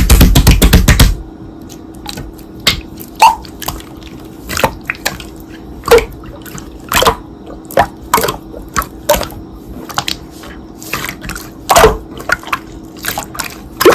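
Slime being squeezed and poked by hand, making wet popping clicks: a fast run of loud pops in the first second, then scattered single pops. A faint steady hum runs underneath.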